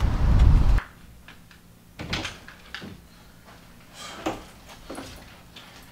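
A short low rumble that cuts off suddenly under a second in. Then a quiet room with a few knocks and clicks as a door is opened and someone comes in.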